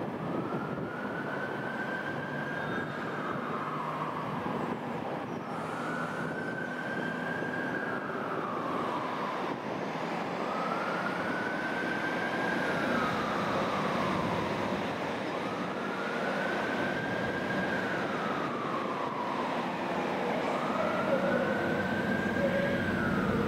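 A siren in a slow wail, rising, holding and falling about every four and a half seconds, five times, over a steady rumble of background noise.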